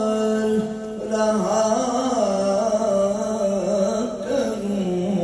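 A man singing a devotional Urdu verse (naat) unaccompanied, in a slow melismatic style. He holds long notes that waver and slide between pitches, with a brief breath about a second in.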